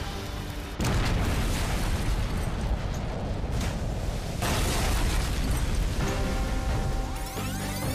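An oil tanker's crude-oil tank explodes about a second in: a sudden blast that runs on as a long rumble, with a second surge about three and a half seconds later. Dramatic background music plays under it and comes through clearly again near the end.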